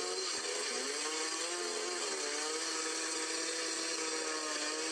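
Two-stroke chainsaw engine running steadily. Its pitch wavers a little in the first couple of seconds, then holds steady.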